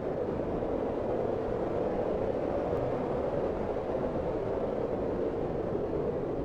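Strong blizzard wind blowing as a steady, deep rush.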